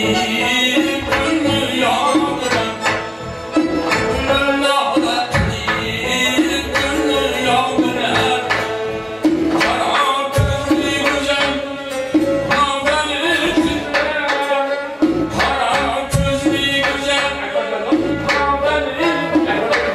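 Central Asian folk song: an elderly man singing, accompanied by a plucked long-necked lute, a hand-struck frame drum and electronic keyboards, at a steady beat.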